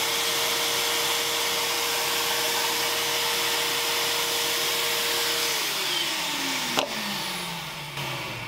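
Vacuum cleaner running through a model railway ballast vacuum head, a steady rushing hiss with a whine. About five and a half seconds in the whine starts to fall in pitch as the motor winds down, with a single click partway through the run-down.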